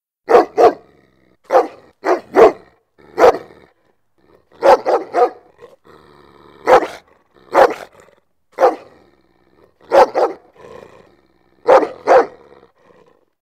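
A large dog barking repeatedly, about sixteen sharp, loud barks coming singly and in quick pairs and triplets, with a quieter growl between barks near the middle.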